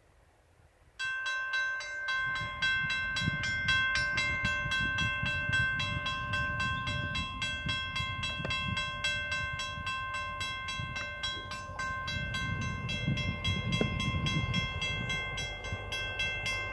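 Railway grade-crossing warning bell starting suddenly about a second in and ringing on with rapid, even strokes, signalling an approaching train. A low rumble runs underneath, louder near the end.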